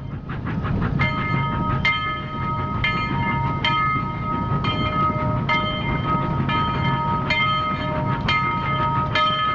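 A train running along its track: a steady rumble with a sharp click about once a second and a steady high tone over it.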